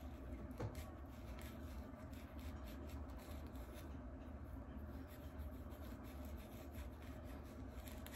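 Faint scratching of a fine-toothed plastic nit comb and fingernails scraping through hair against the scalp, in many short strokes, working loose dry scalp flakes.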